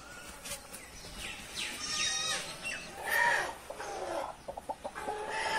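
Desi hen calling several times in short, wavering cries while being held and carried by hand.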